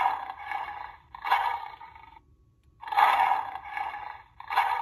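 Recorded lion roars, four rough roars of about a second each coming in two pairs.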